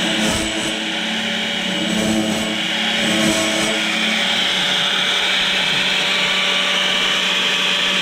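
Electric band-saw blade sharpener running, its grinding wheel steadily grinding the teeth of a sawmill band blade over a constant motor hum.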